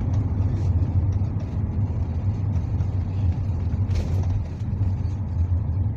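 Steady low drone of a NefAZ city bus's engine and road noise, heard inside the passenger cabin while the bus is under way. There is a brief sharp click about four seconds in.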